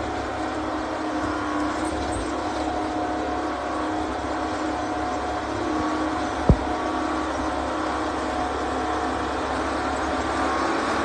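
Timberjack 230 log skidder's diesel engine running steadily. A single sharp thump comes about six and a half seconds in.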